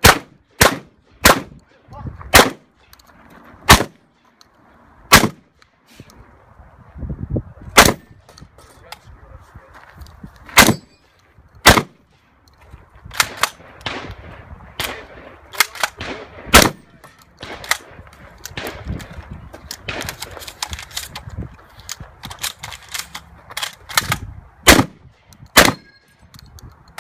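Stoeger M3000 12-gauge semi-automatic shotgun firing a long string of about twenty shots, some in quick pairs about half a second apart, others with pauses of a second or more between them.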